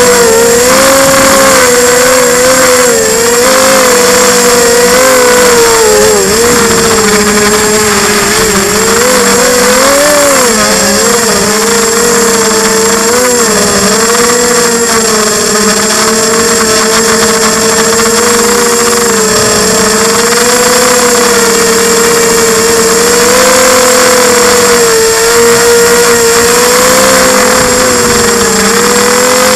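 Quadcopter's electric motors and propellers whining in flight, heard up close from a camera mounted on the frame. The pitch wavers up and down with the throttle, most between about six and eleven seconds in.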